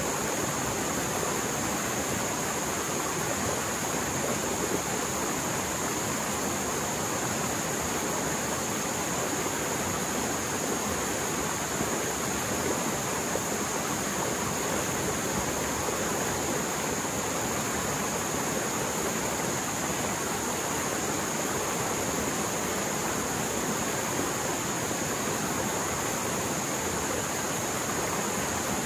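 Mountain stream swollen after heavy rain, flowing fast: a steady, unbroken roar of rushing water.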